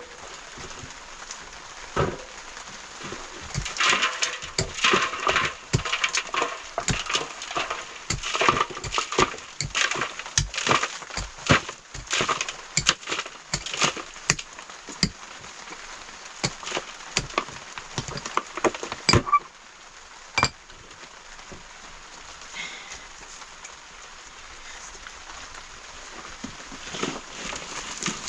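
A run of irregular knocks, clinks and cracks, at times several a second, that stops about nineteen seconds in; after that only a steady hiss with an odd tick.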